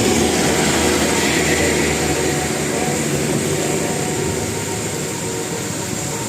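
A bus driving past, its engine and road noise loudest at first and slowly fading as it moves away.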